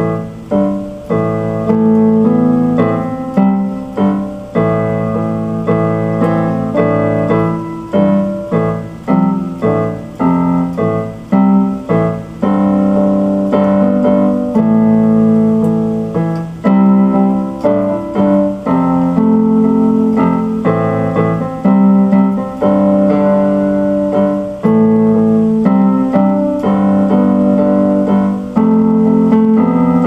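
Solo instrumental music on a digital keyboard with a piano sound: chords struck and left to ring, with a melody played over them.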